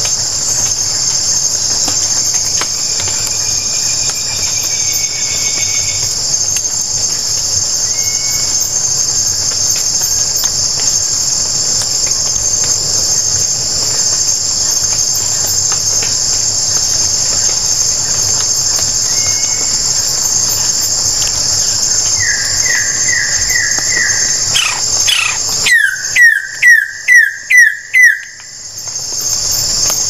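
Steady, loud, high-pitched chorus of rainforest insects. Near the end a bird calls: a quick run of short notes, then about six loud downslurred notes in a row, the loudest sound here.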